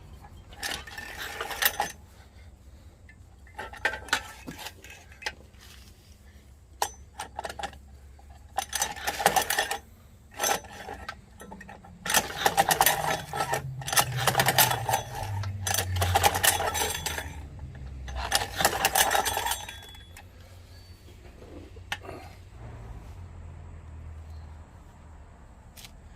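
Metal tools and small engine parts clinking and clattering in irregular bursts, the longest and busiest near the middle.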